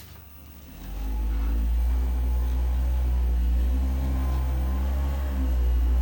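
Electric motor of a motorized chiropractic table starting about a second in and then running with a steady low hum.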